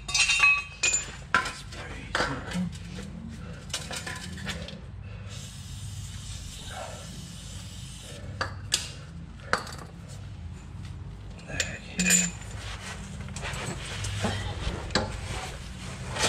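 Metal hand tools clinking and clattering against one another and the concrete floor as they are picked up and set down, scattered sharp clinks over a steady low hum.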